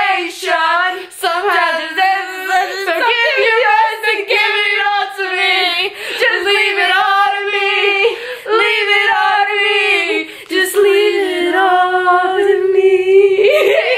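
Two girls singing loudly together without accompaniment, drawing out long held notes.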